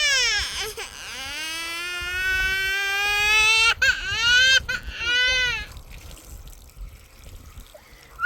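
A young child crying: one long wail that rises slowly for about three seconds, then two shorter cries about four and five seconds in, after which it dies down.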